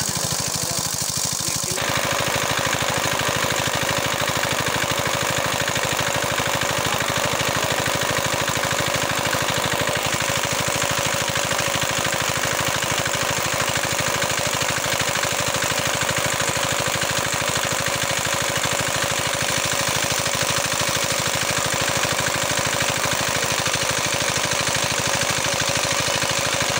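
Small engine-driven water pump running steadily, with a fast, even chugging beat. It gets a little louder about two seconds in.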